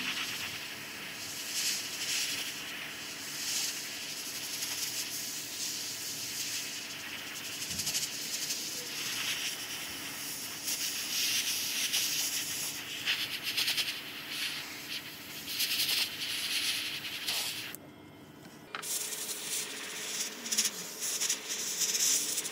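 Iwata Eclipse HPCS airbrush spraying acrylic paint at 22 psi: a steady hiss of air that swells and eases as the trigger is worked, stopping briefly about eighteen seconds in and then starting again.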